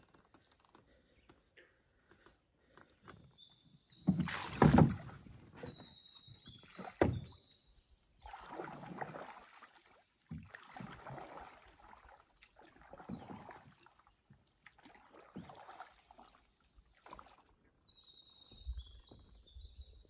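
Canoe paddle strokes in calm water, a swish and splash about every two seconds. A loud knock and scrape comes about four seconds in, with a second sharp hit about three seconds later.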